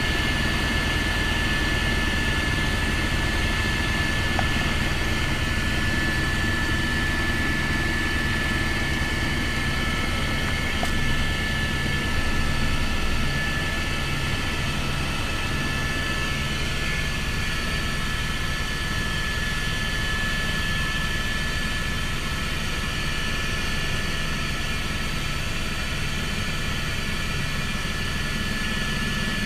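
Helicopter cabin noise in flight: the steady drone of the rotor and engine, with a constant high whine over it.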